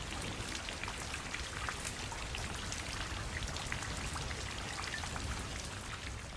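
Steady rain falling, many small drops ticking over a continuous hiss with a low rumble underneath; it begins to fade out near the end.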